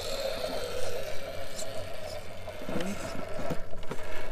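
Electric drive motor and gearbox of an RC scale trial truck whining steadily as it crawls over rocks, fading about three seconds in.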